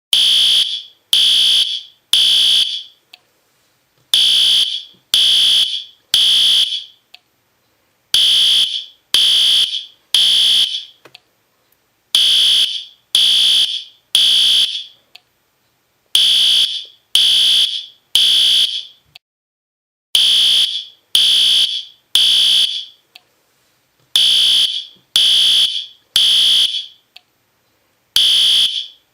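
System Sensor P2R fire alarm horn strobe sounding in the temporal-three pattern: three loud, high-pitched buzzing blasts about a second apart, then a short pause, repeating over and over. The three-pulse code is the standard fire evacuation signal.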